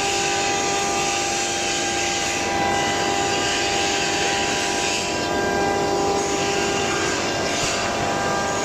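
CNC router running steadily as it cuts tongue-and-groove-effect wall panels: a constant whine of several fixed tones over a loud rushing noise.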